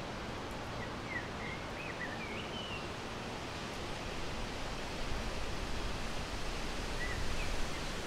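Steady outdoor background hiss with a low rumble building in the second half. A small bird sings a short wavering phrase from about one to three seconds in, and gives one more brief note near the end.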